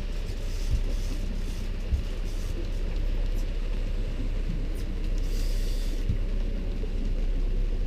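Boat motor running steadily, a low drone, with a couple of faint knocks about one and two seconds in.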